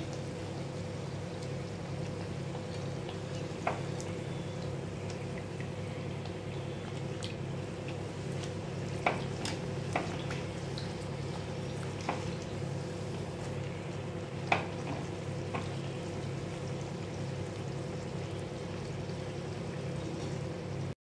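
Sweet potato puris deep-frying in a kadhai of hot oil: a steady sizzle and bubbling, with several sharp clicks as a wire mesh skimmer turns the puris against the steel wok, over a steady low hum.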